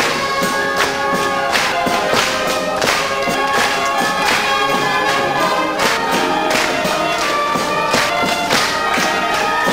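A concert wind band playing: brass, saxophones, clarinets and flutes together, with percussion keeping a steady beat.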